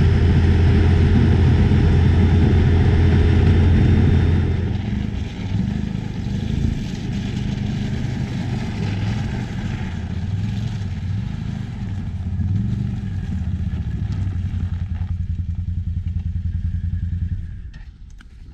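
ATV engine running as it drives across lake ice: loud and steady at first, then softer, its pitch rising and falling. The engine sound drops away sharply near the end as the ATV stops.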